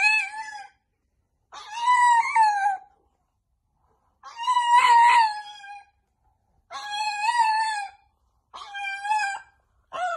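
Pug howling: a run of long, high-pitched drawn-out cries, each about a second long, with short pauses between them.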